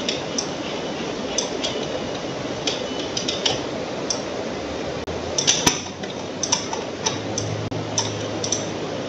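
Computer mouse clicking and its scroll wheel ticking, a dozen or so short sharp clicks at irregular intervals with a quick cluster about halfway through, over a steady background hiss.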